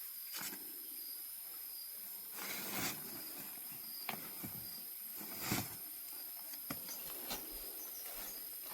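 Forest insects droning steadily at a high pitch, with one thin continuous trill held on a single note. Several short rustles and cracks of movement through the undergrowth break in, the loudest about five and a half seconds in.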